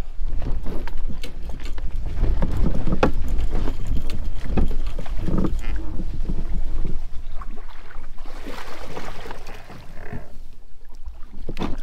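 Wind rumbling over the microphone, with scattered knocks and clunks from a kayak being handled and moved.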